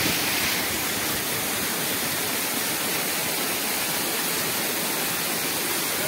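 Waterfall cascading down over rock: a steady, unbroken rush of falling and splashing water.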